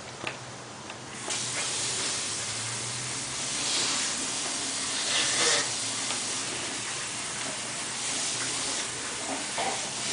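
Roomba robot vacuum switching on about a second in and running with a steady, loud hiss that swells now and then.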